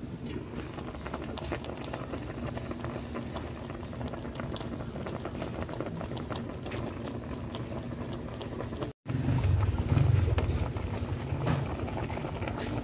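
A pot of beef bulalo broth with pechay and cabbage simmering, bubbling steadily with many small pops. There is a brief break about nine seconds in, and after it the bubbling is louder, with a low rumble under it.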